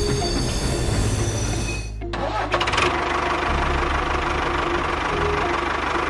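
Background music over a toy's running noise. A battery toy steam locomotive runs for about two seconds, then the sound changes abruptly to a steady engine-like noise.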